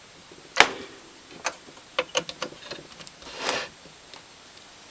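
Hands connecting wires at a car audio amplifier's terminals: one sharp click about half a second in, several lighter clicks, and a short rustle of handling.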